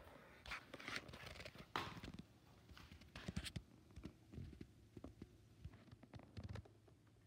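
Faint handling noise: irregular rustles and light clicks, loudest about two seconds in and again around three and a half seconds in.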